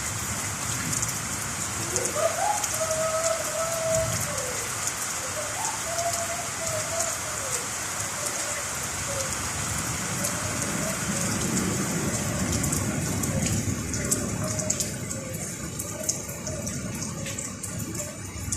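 Steady rain falling, a dense hiss of drops that thins out somewhat in the last few seconds. About two seconds in, a faint wavering tone rises and holds for a couple of seconds, then comes again around six seconds.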